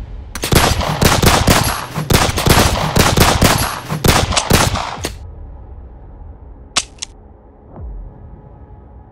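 Rapid automatic gunfire, a film sound effect: about four shots a second for some five seconds, stopping suddenly. Two brief high clicks follow about two seconds later.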